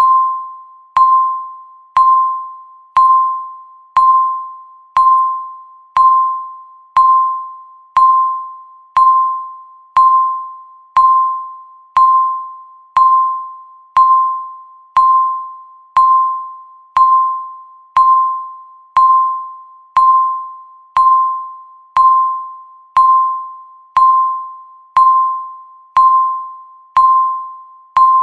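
Countdown timer beeping once a second: a single clear electronic tone with a sharp start that dies away before the next beep, marking each second as the count runs down.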